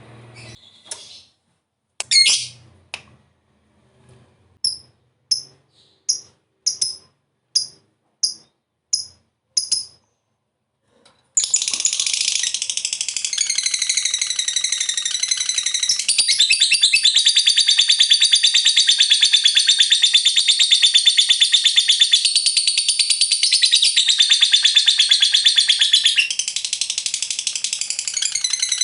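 Lovebird calling: first a string of short, sharp chirps at a little under two a second, then after a brief pause a long unbroken rapid chattering trill (ngekek panjang) that runs on without a break.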